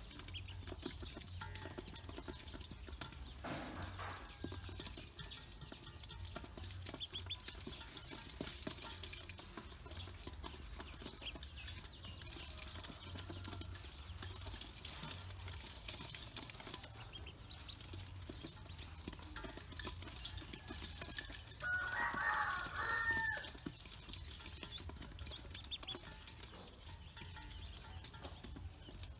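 Pekin ducklings peeping in a constant chorus, with light tapping as they peck at feed in a metal bowl. About two-thirds of the way in, a louder, lower bird call rises over them for about a second and a half.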